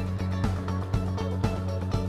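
Background music with a steady beat of about two strikes a second over sustained bass notes.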